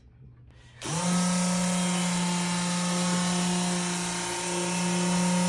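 A small electric motor starts up a little under a second in, winding up quickly, and then runs with a steady hum.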